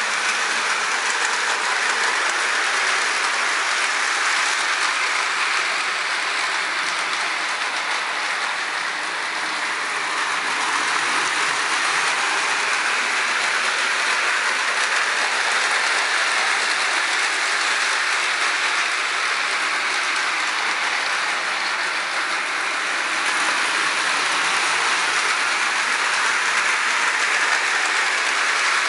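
Marx electric toy train running around its track, a steady whir and rattle of its motor and wheels that dips slightly twice.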